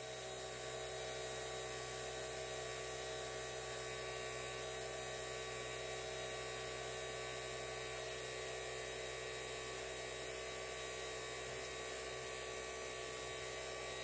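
NAVAC NP2DLM battery-powered two-stage rotary vane vacuum pump running with a steady hum at deep vacuum. It is holding around 60 to 70 microns, which the owner suspects is held back by oil that is no longer fresh.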